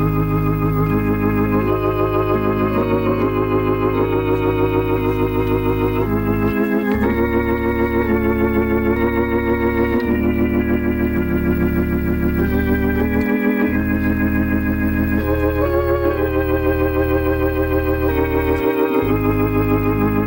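Organ playing a slow hymn in held chords with a wavering vibrato. A deep bass note changes every few seconds.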